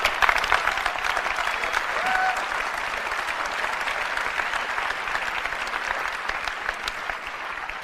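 Large auditorium audience applauding, a dense steady clapping that dies away near the end.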